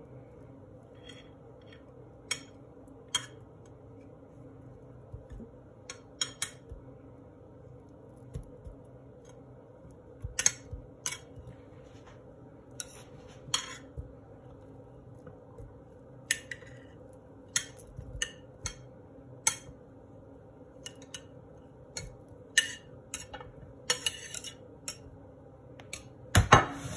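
Frozen banana slices being pushed off a plate with a metal utensil into a glass blender jar: scattered clinks and knocks of the utensil on the plate and the hard frozen pieces dropping onto the glass, with a louder clatter near the end.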